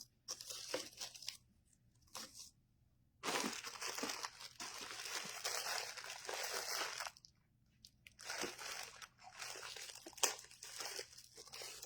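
Ribbon being handled and crinkled, a few light clicks and then two long stretches of rustling.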